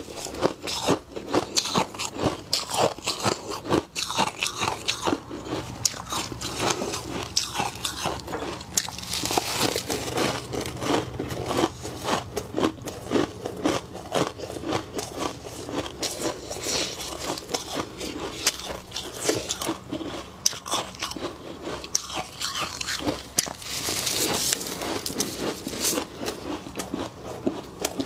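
Thick, fluffy freezer frost crunching as gloved hands scoop and squeeze it: a dense, irregular stream of soft crunches and crackles.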